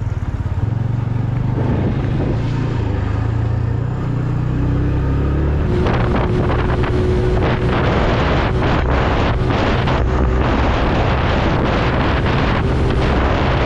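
Motorcycle engine running steadily at low speed. About six seconds in it gives way to heavy wind buffeting on the microphone as the bike cruises at road speed, with the engine still running underneath.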